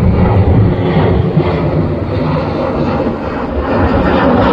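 Twin-engine jet aircraft, a Boeing 737-based P-8 Poseidon, flying low overhead: a steady, deep jet-engine rumble.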